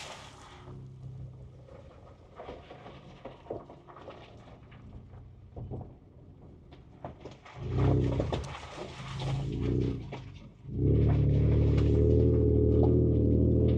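2024 Ford Ranger Raptor's 3.0-litre twin-turbo V6 heard from inside the cab: quiet at first with scattered light clicks, two brief surges of engine sound a little past halfway, then a loud, steady engine drone from about three-quarters of the way in.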